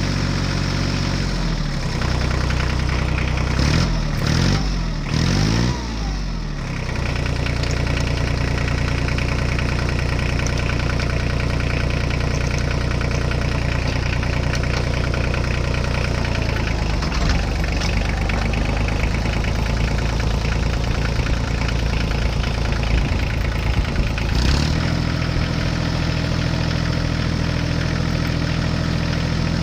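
Heavy machine engine running steadily, revving up and down several times a few seconds in, with a change in engine note about three-quarters of the way through.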